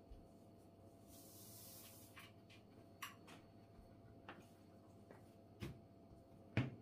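Faint sounds of baklava dough being hand-rolled on a long thin wooden rolling pin over a floured wooden board: a few soft knocks and taps, the loudest a dull thud near the end, and a brief soft hiss about a second in.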